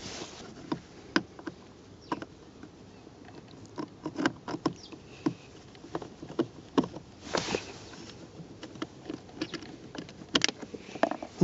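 Scattered small clicks and taps of a Phillips screwdriver working plastic push rivets out of a car's under-dash trim panel, plastic on plastic, with a few sharper clicks in the second half.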